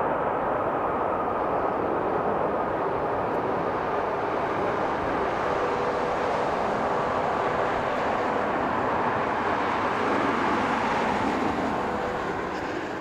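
Boeing 787-9 Dreamliner's Rolls-Royce Trent 1000 jet engines, a steady roar with faint whining tones as the airliner rolls out on the runway after landing, fading away near the end.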